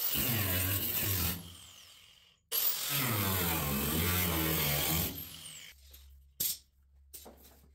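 A handheld cut-off wheel slicing through old sheet-metal quarter panel in two bursts, each ending with the pitch falling away as the disc spins down on release. A few light clicks and knocks follow near the end.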